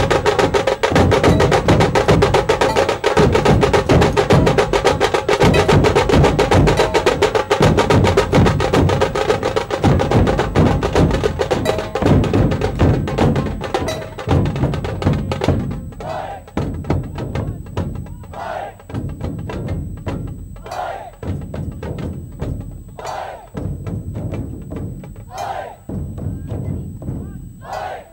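Large Maharashtrian dhol barrel drums beaten with sticks by a whole troupe in a fast, dense rhythm. About halfway through the playing thins to sparser, separated strokes, with a higher ringing note coming back every two seconds or so.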